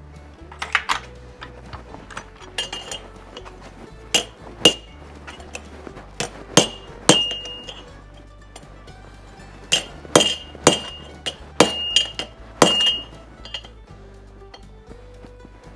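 Hammer blows on a bent iron wagon brace held against an anvil, straightening it. There are about a dozen irregular strikes, each with a short metallic ring, bunched most closely near the middle and end.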